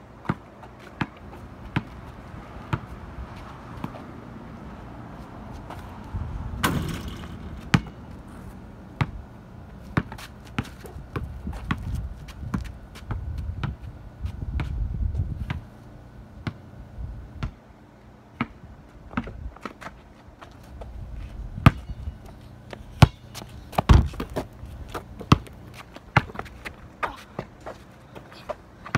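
Basketball bouncing on asphalt during a game, a long run of irregular bounces with now and then a much louder knock, over a low rumble.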